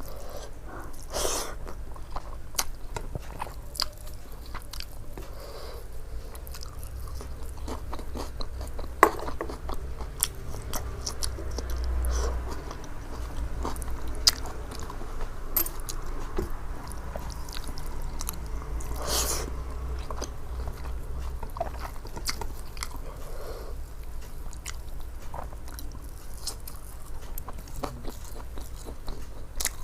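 A person eating close to the microphone: chewing and biting a meal of rice and curry, with scattered crunches and small clicks over a low hum.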